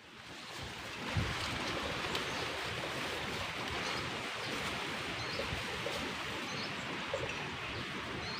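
Steady rush of water, swelling over the first second and then holding even.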